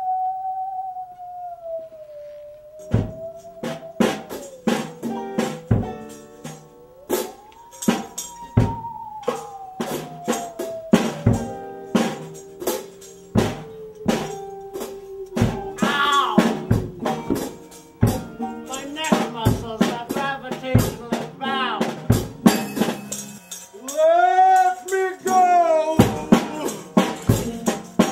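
Band music: a single high, wavering tone glides up and down, and about three seconds in regular drum hits and tambourine come in under it, with acoustic guitar strumming. A voice briefly whoops over the music a couple of times.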